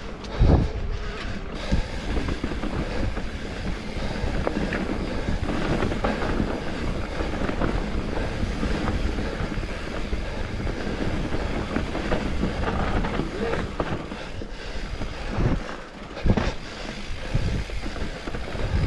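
Specialized Turbo Levo electric mountain bike ridden down a dirt trail, heard from an action camera mounted on the bike or rider. There is steady wind noise on the microphone, along with tyre and frame rattle. Heavier thumps come over bumps about half a second in and again near the end.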